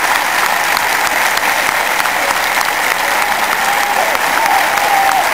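A large stadium crowd of football supporters applauding as one dense, steady wall of clapping, with voices calling out over it near the end.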